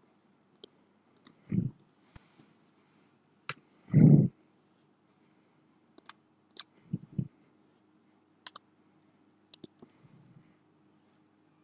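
Scattered computer mouse clicks and keyboard key presses as numbers are entered into a form, with a few louder dull thumps in between, the loudest about four seconds in.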